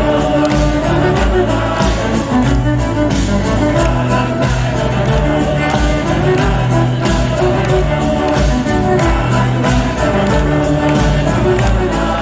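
Live rock band playing a song with a steady drum beat.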